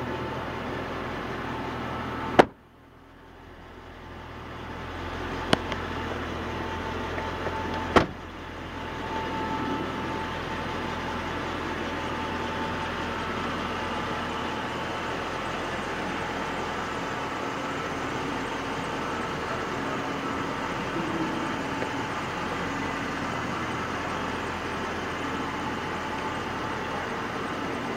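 A car door slams shut about two seconds in, and two lighter knocks follow a few seconds later, over a steady background hum.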